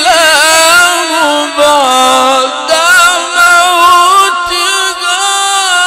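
A male reciter chanting verses of the Quran in melodic tajweed style. A single voice draws out long, ornamented notes, with brief breaks between phrases.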